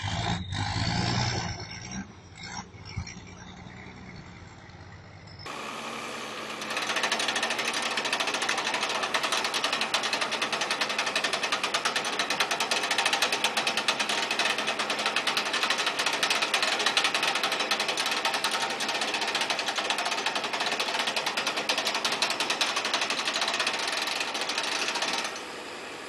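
A loaded log truck's engine rumbling low as it manoeuvres, with a few knocks in the first couple of seconds. About five seconds in, the sound changes to a steady, rapid mechanical clatter that stops shortly before the end.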